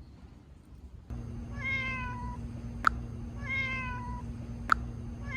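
A cat's meow, repeated three times at even intervals about two seconds apart, each call identical and sliding slightly down in pitch. A sharp click falls between the calls, over a steady hum that starts suddenly about a second in. The exact repetition marks a looped meow sound effect.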